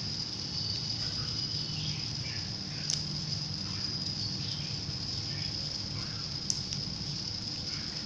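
Small plastic-gearbox DC motor (yellow 'TT' gear motor) running under joystick control through a motor driver: a steady high thin whine over a low gear hum. Two brief clicks, about three and six and a half seconds in.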